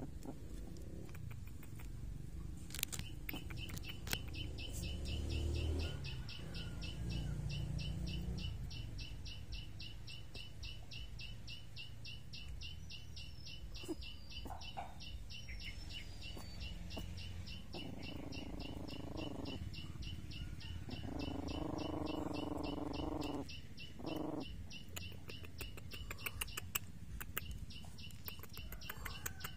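High-pitched chirping repeated rapidly and evenly, several times a second, starting about three seconds in and keeping on. Past the midpoint, puppies whine three times, each drawn out for up to two seconds.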